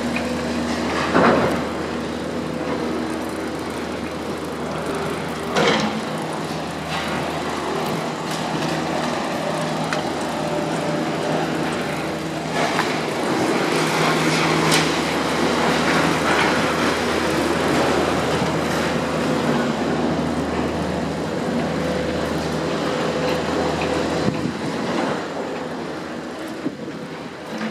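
A motor vehicle engine running steadily at idle, with a hum of several steady pitches over a wash of road noise. Two brief knocks sound about one and six seconds in.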